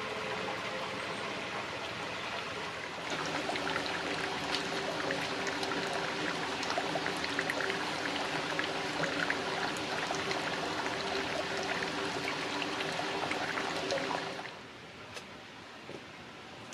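Hot-spring water pouring and splashing into a bath. It grows louder about three seconds in, then drops away sharply near the end.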